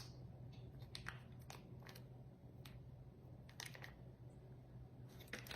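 Near silence with a low hum and a dozen or so faint, scattered clicks and taps of light kitchen handling.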